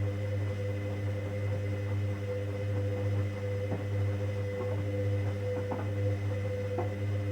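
Hoover Dynamic Next washing machine humming steadily during its 90 °C cotton main wash, with a few faint ticks.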